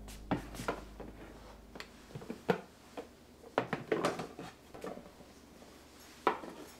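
Light knocks, taps and scrapes as white cardboard boxes are handled on a kitchen countertop: lids pulled off and the box bases set down. The sharpest knocks come about two and a half seconds in and just past six seconds.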